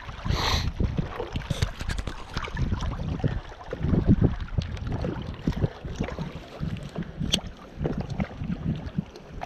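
Wind buffeting the microphone in uneven gusts, with a short whoosh about half a second in as a baitcasting rod is cast and the line pays out.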